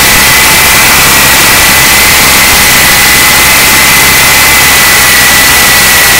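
CX2 RC coaxial helicopter's electric motors and rotors running, heard very close up from the iPod Nano camera it carries. Loud steady rushing noise with a high motor whine that holds nearly level throughout.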